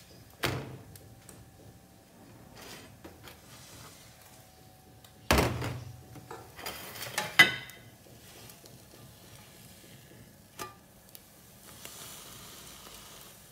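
Kitchenware handled on a counter: a thud about half a second in, then a louder thump about five seconds in followed by a second or two of clattering and clinking, and a sharp click later on. Near the end a faint sizzle of French toast frying in the grill pan.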